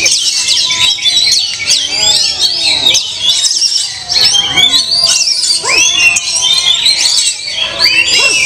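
Many caged songbirds singing at once: a dense, loud chorus of overlapping fast chirps, whistles, trills and squawks.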